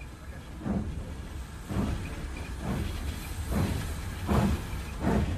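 A train running: a repeating pulse about once a second over a steady low rumble and hiss.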